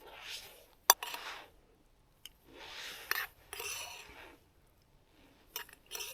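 Lunch things being handled: soft rustling and scraping in several short spells, with a few sharp clicks, the loudest about a second in.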